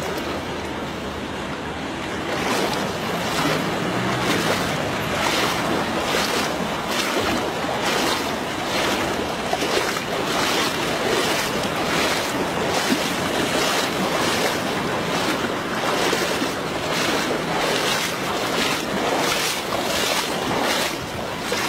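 Footsteps wading through shallow floodwater, splashing and sloshing about twice a second, starting a couple of seconds in, with wind rumbling on the microphone.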